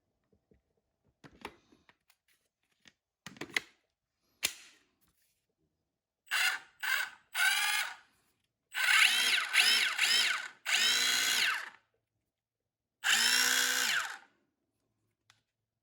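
Milwaukee M18 FUEL SDS-plus cordless rotary hammer triggered in a series of bursts, its motor whine rising in pitch as it spins up and falling as it winds down, the longest run about three seconds. A few light clicks and knocks of handling come first.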